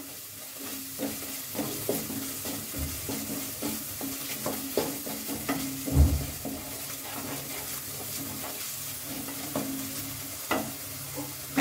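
Tomato and spice masala sizzling gently in a metal kadhai while a wooden spatula stirs and scrapes the pan in irregular strokes, with a low bump about six seconds in. A faint steady low hum runs underneath.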